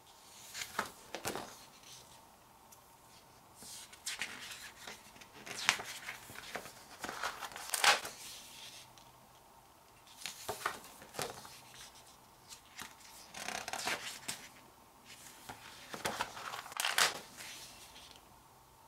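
Paper and packaging handled by hand: irregular rustling and crinkling with sharp crackles, loudest about eight seconds in and again near the end.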